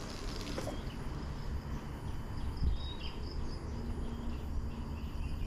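Riverbank ambience: a steady low rumble with faint, repeated high chirping of insects and birds, and a brief knock about half a second in.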